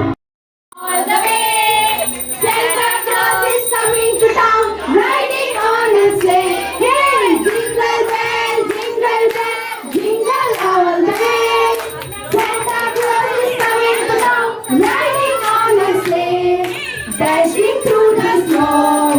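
A song playing: a singing voice over backing music, starting after a brief silence near the start.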